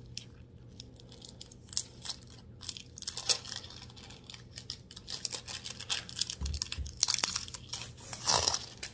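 Crinkling and crackling of a rolled diamond-painting canvas and its packaging being handled, with scattered sharp clicks that grow denser partway through and a louder crackling burst near the end.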